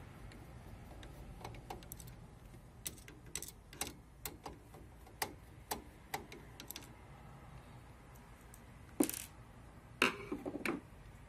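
Screwdriver working the screws on an Epson LQ-2190 dot matrix printer's print head: scattered light metallic clicks as the tip seats and turns. Near the end come a few louder knocks and rattles.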